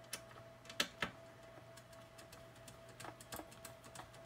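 Small metal clicks and ticks of threaded risers being turned into drilled holes in an aluminum case: three sharper clicks in the first second, then a run of lighter ticks. A faint steady hum runs underneath.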